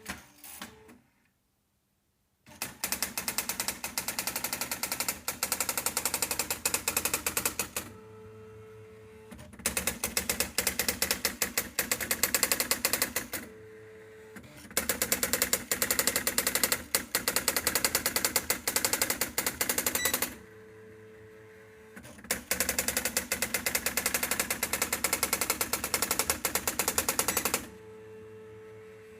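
Privileg 1200 (Erika 3004) electronic daisy-wheel typewriter printing a self-test: lines of rapid, even typing strikes, many a second, each run lasting about four to six seconds. Between the lines come pauses of about a second and a half with a steady hum.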